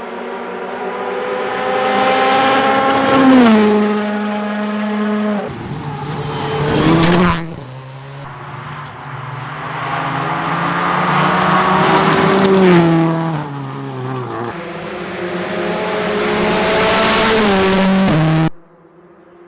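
Rally cars passing at speed one after another: a loud engine note climbs as each car approaches and drops in pitch as it goes by, about four passes in all. The sound breaks off suddenly near the end.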